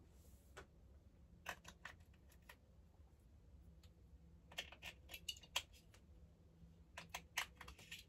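Small plastic clicks and taps from hands handling and hanging battery-powered butterfly string lights, in three short clusters: about a second and a half in, around five seconds in, and near the end. A faint low hum lies underneath.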